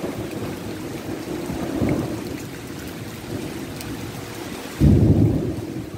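Tropical thunderstorm: steady rain with low rumbling, and a sudden loud crack of thunder near the end that fades over about a second.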